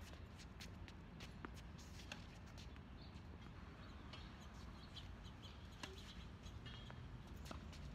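Faint outdoor ambience: a low steady rumble with many short, high chirps and clicks scattered through it.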